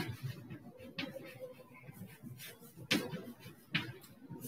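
Chalk writing on a blackboard: a few sharp chalk taps spaced out over the few seconds, with faint scratching between them.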